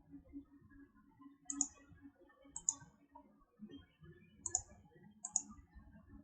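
Computer mouse clicking: four short, sharp clicks spaced a second or two apart, over a faint low background hum.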